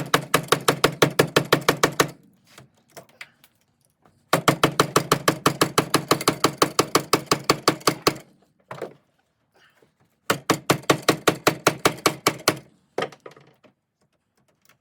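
A power tool running in three bursts of two to four seconds, each a rapid even rattle of about nine knocks a second over a low hum.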